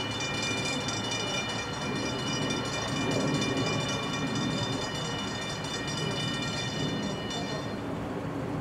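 Safetran grade-crossing bell ringing rapidly and steadily, stopping near the end, over a low rumble from an approaching NJ Transit train.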